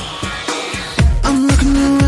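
Background pop music with a steady beat. About a second in it grows louder and fuller, with heavy bass and drums and a held melody.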